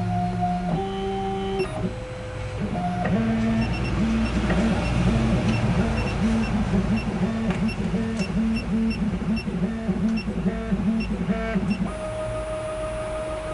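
SEC-E9 electronic key machine decoding an HU92 key, its stepper motors whining as the probe moves. The whine is a run of steady tones that jump in pitch, settles into a back-and-forth pattern of about two pitch changes a second, and holds one steady tone near the end.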